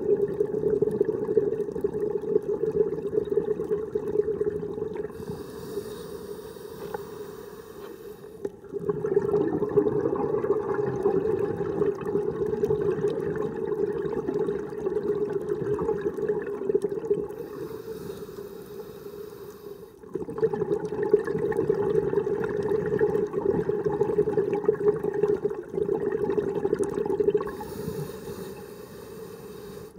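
Scuba diver breathing through a regulator underwater: long exhalations of rushing, bubbling air that start suddenly about nine and twenty seconds in and trail off, each preceded by a shorter high hiss of inhalation. That makes about three slow breaths.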